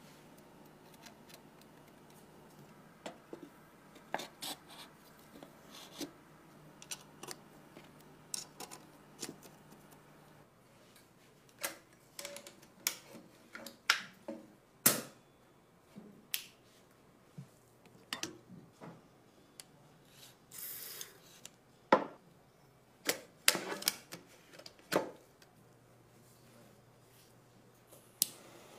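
Scattered sharp clicks and knocks of an airsoft gun's metal parts being handled and fitted together, louder and more frequent after the first ten seconds. A short hiss comes about two-thirds of the way through.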